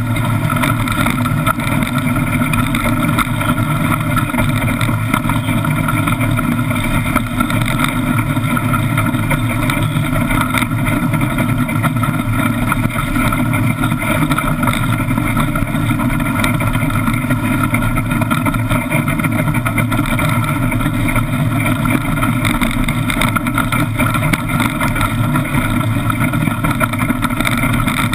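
Iceboat sailing over rough lake ice: a steady, loud rumble and hiss from the runners scraping the ice, carried through the wooden hull, with rushing air.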